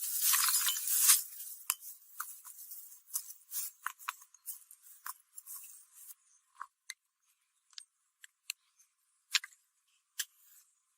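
Rapid scraping of a hand tool working metal, stopping about a second in, followed by scattered light clicks and taps that come less and less often. Thin-sounding, with no bass.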